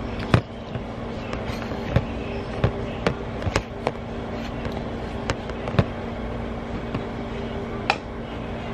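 Handling noise: scattered sharp taps and knocks, about eight over several seconds, over a steady low hum.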